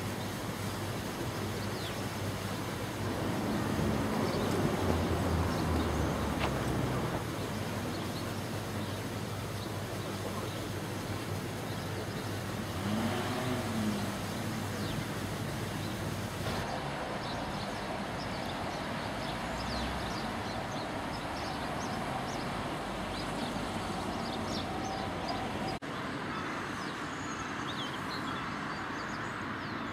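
Outdoor town ambience: a steady rushing noise with road traffic passing, loudest from about three to seven seconds in.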